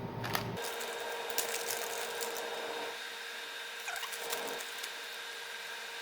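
Scattered small clicks and crackles of hand work on the drone's plastic parts, over a steady thin whine that starts about half a second in.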